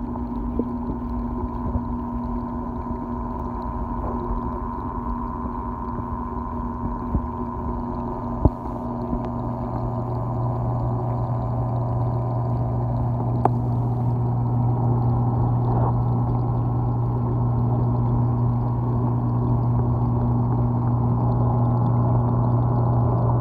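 Steady electric hum of a reef aquarium's pumps with the wash of circulating water and a few faint clicks; the low hum grows louder about ten seconds in.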